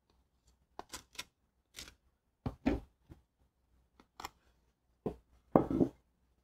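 Light taps and crisp rustles of baked cream puffs with crunchy craquelin tops being handled and lifted off a metal wire cooling rack. About a dozen short clicks come in small clusters, and the loudest, longest rustle comes near the end.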